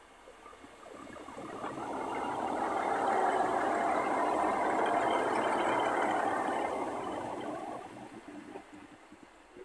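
A Class 150 Sprinter diesel multiple unit passing close by: the wheels on the rails and the underfloor diesel engines grow louder, are loudest for a few seconds as the train goes by, then fade away.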